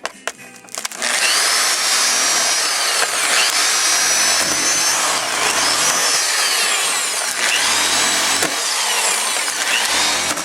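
Hammer drill running hard with a loud, dense grinding noise, its motor whine rising and falling in pitch every couple of seconds. A few sharp clicks come just before it starts, and it cuts off abruptly at the end.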